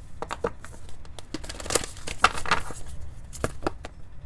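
A deck of oracle cards being shuffled by hand: a run of short papery rustles and soft taps at uneven intervals, loudest around the middle.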